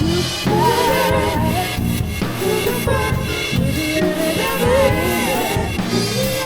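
A drum kit with Steely B10 cymbals played as a cover along to a recorded song with singing.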